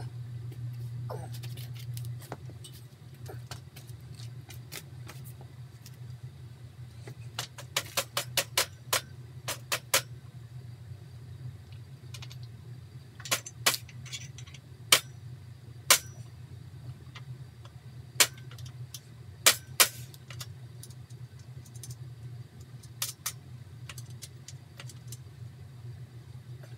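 Sharp metallic clicks and clinks of metal stand parts and hardware being handled during assembly, a quick run of them about a third of the way in and then scattered single ones, over a steady low hum.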